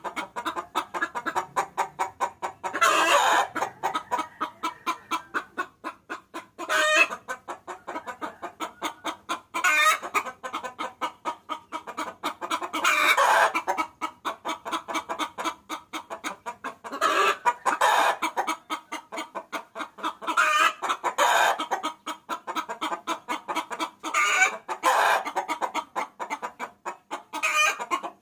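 Hen clucking in a quick, even series, with a louder cackle breaking in about every three to four seconds: the hen's call used as a lure to draw roosters.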